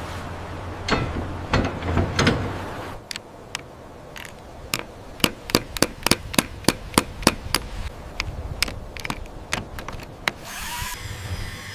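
A low rumble with a few heavier knocks, then a quick run of sharp taps on wood, about three a second, lasting several seconds.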